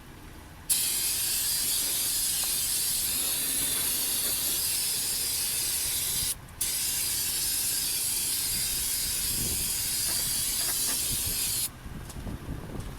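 Pressurised spray hissing in two long, even bursts, about six and five seconds long, each starting and stopping abruptly with a short break between.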